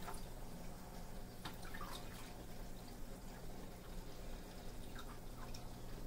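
Water dripping faintly in a small 3D-printed tabletop water fountain: a handful of separate drops at uneven intervals over a low steady hum.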